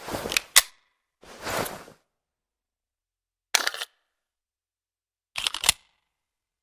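Colt 1911 pistol being handled: a clatter ending in a sharp metallic click, a longer sliding rasp, then two short clusters of clicks a couple of seconds apart, the sounds of working the gun's action before it fires.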